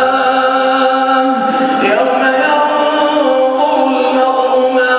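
A man's voice reciting the Quran in melodic tajweed chant, holding long drawn-out notes; the pitch dips and climbs back up about two seconds in.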